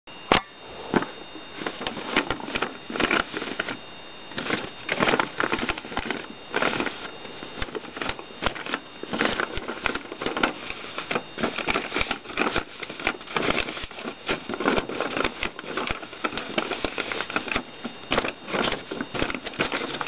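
A creased sheet of origami paper being handled and folded close up: continuous crinkling and rustling with irregular sharp crackles as it flexes along its creases.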